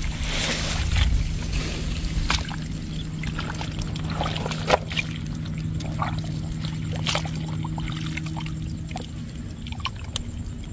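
Gloved hands groping through thick mud and shallow muddy water, sloshing and squelching, with a few sharp wet splats scattered through.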